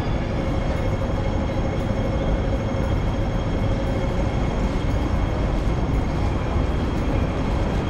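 Steady, rumbling urban street noise with a strong deep rumble and a few faint steady tones above it.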